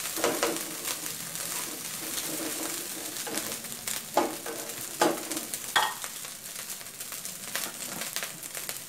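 Shrimp fried rice sizzling in a hot nonstick wok, a steady frying hiss. A few scrapes and knocks of a spatula against the pan come between about four and six seconds in.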